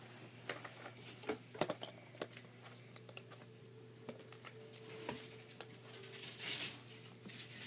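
Scattered light clicks and taps, a few at a time, with a short rustle about six and a half seconds in, over a faint steady hum.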